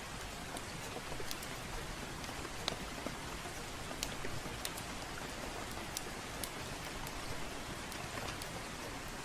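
Steady rain falling, with irregular sharp pops and snaps from a crackling wood fire scattered through it.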